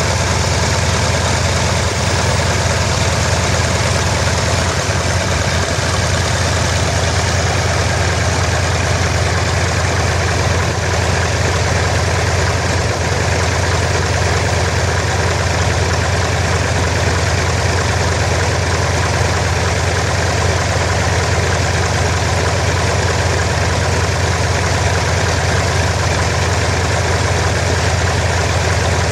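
Flitzer biplane's piston engine idling steadily, with no change in speed.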